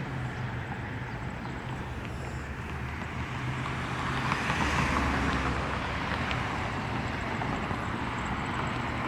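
Outdoor road traffic noise: a steady low rumble that swells briefly about four to six seconds in, as if a vehicle were passing.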